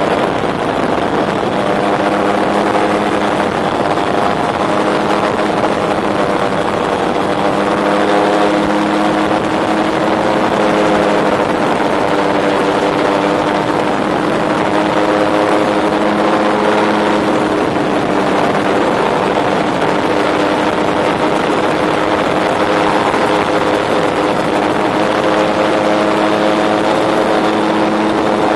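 Rotax 914 turbocharged flat-four engine and pusher propeller of a Tandem Dominator gyroplane running steadily in flight, heard from the open seat over a loud rush of air. The engine note drifts slightly up and down in pitch.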